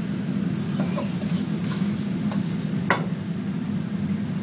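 Steady low kitchen hum with a few light clinks of a cooking utensil, the loudest about three seconds in.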